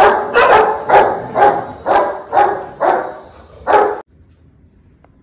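A dog barking over and over, about two barks a second, eight barks in all, stopping abruptly about four seconds in.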